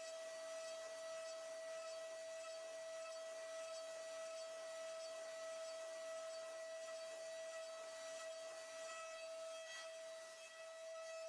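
CNC milling machine cutting a metal part with a ball-nose end mill: a steady high-pitched whine over an even cutting hiss.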